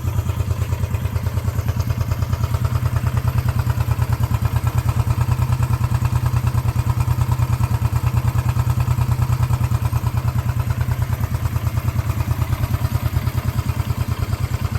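1972 Honda CB350's air-cooled parallel-twin engine idling steadily with an even, regular pulse. It is warm and freshly tuned with new points, coils and rebuilt carburetors, and running smoothly: a purr.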